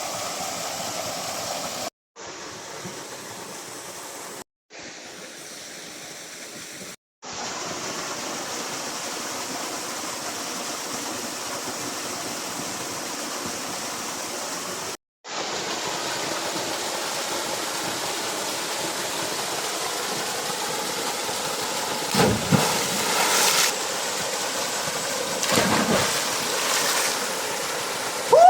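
Steady rushing of flowing water from a stream or waterfall, with two brief louder sounds about three quarters of the way through and near the end.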